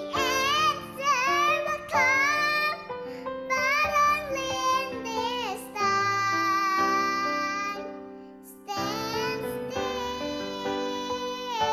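A young girl singing a slow worship song over instrumental accompaniment, holding long wavering notes. The music dips briefly about eight seconds in, then the voice comes back in.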